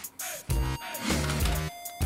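Background electronic music with a steady beat and heavy bass hits.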